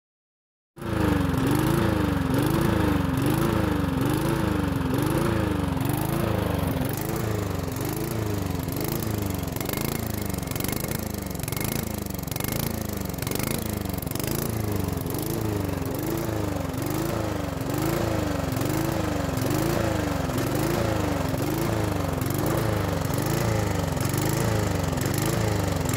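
Briggs & Stratton push-mower engine with a plastic Pulsa-Prime carburetor, starting about a second in and running with its speed rising and falling rhythmically, a little more than once a second. This is surging, the fault that a rebuild of the carburetor (new diaphragm, gasket, filter screen and spring) is meant to cure.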